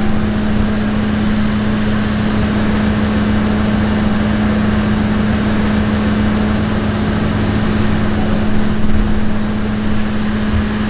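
Cotton candy machine running: a steady electric-motor hum over an even whir from the spinning head.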